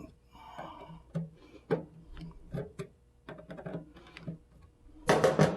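Small, irregular plastic clicks and knocks from a new three-prong replacement plug being taken apart by hand, with a short rasp about half a second in and a louder clatter near the end.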